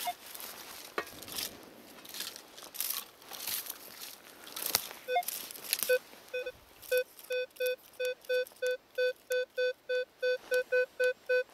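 Metal detector beeping at a buried metal target, a string of short identical electronic beeps that starts about halfway through and repeats faster toward the end, at about four a second. Before the beeps, scattered crackling and rustling of the ground being worked.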